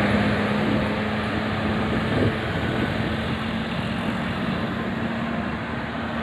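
Road vehicle passing, a steady engine hum under tyre and road noise that slowly fades.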